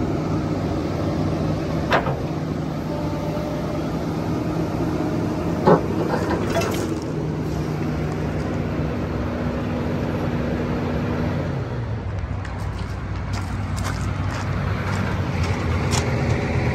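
Kobelco SK350-8 excavator's diesel engine running steadily, with two short sharp clicks about two seconds and six seconds in; its note shifts slightly about eleven seconds in.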